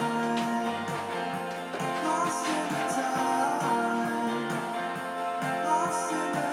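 Background music: guitar with singing.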